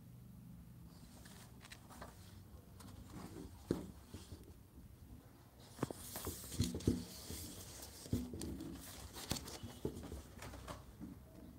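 Pages of a printed paper book being turned by hand: paper rustling and flapping, with a few sharp taps and a louder flurry of page noise about halfway through.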